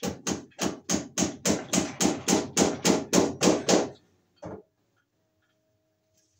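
Hammer blows in a fast, even run of about fourteen strikes, roughly three and a half a second, stopping about four seconds in, then one last blow half a second later.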